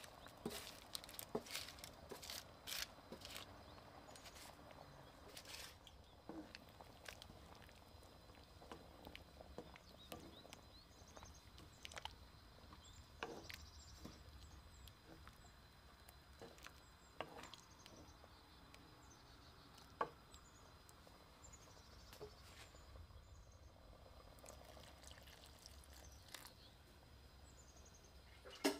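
Roasted eggplant and potato cubes sliding off a baking tray into a pan of sauce: a quick run of soft knocks and plops in the first few seconds. After that there are only faint scattered knocks and small pops as a wooden spoon stirs the simmering sauce.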